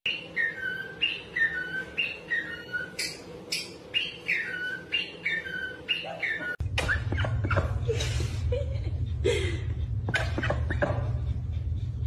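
Cockatiel whistling the same falling note over and over, about two a second. Some six seconds in the sound cuts abruptly to a low hum with scattered clicks and a few short chirps.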